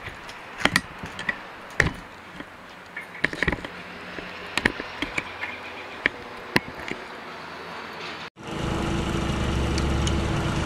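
A run of irregular sharp clicks and knocks. After an abrupt cut about eight seconds in, a Predator 3500 inverter generator's single-cylinder engine runs with a steady low hum.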